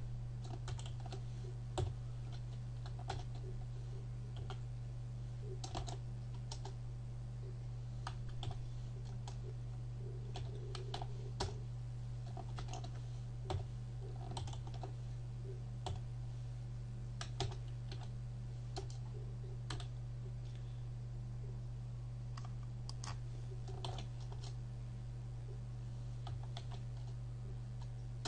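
Computer keyboard typing: scattered, irregular key clicks with pauses between short runs, over a steady low hum.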